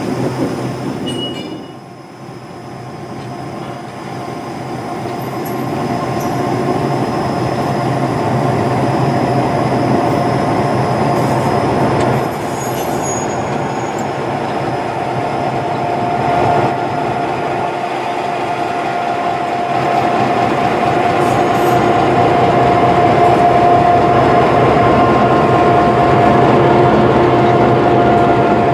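EMD GP9R diesel-electric locomotive running close by: a steady low engine drone with a steady high whine over it that grows louder.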